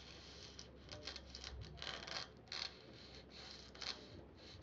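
Faint handling noise of a foam block with a fine music-wire rod pushed through it being worked in the hands: a few short scratchy rubs, the loudest about two and a half seconds in and just before four seconds.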